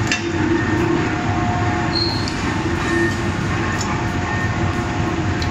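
Steady din of drop-forge machinery running: a constant mechanical rumble with a low hum and only a few faint clicks, no distinct hammer blows.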